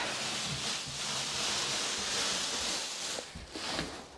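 Carpet being pulled up off a floor: a steady rustling, scraping noise that breaks up near the end.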